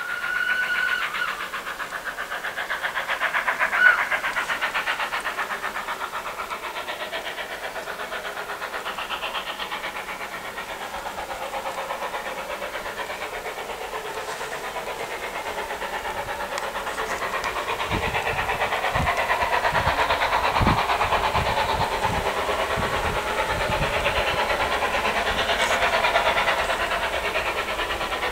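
Ivatt class 2 2-6-0 steam locomotive working hard on a steep gradient, its exhaust beating fast and steadily with steam hiss, getting louder in the second half as it approaches. A short whistle sounds right at the start, and a few low thumps come in later.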